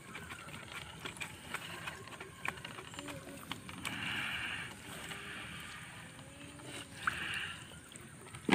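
Wet nylon gill net being hauled by hand into a small boat: water dripping and running off the mesh, with small ticks throughout and two short rushes of streaming water about four and seven seconds in. A sharp knock comes right at the end.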